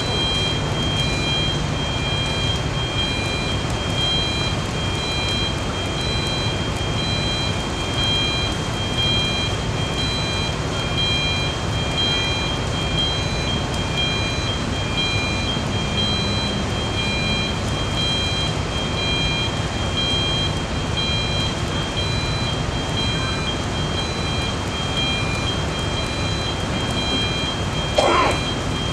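Crawler crane piling rig running steadily, its diesel engine giving a dense low rumble with a steady high-pitched whine over it. Near the end a short, louder sound cuts in briefly.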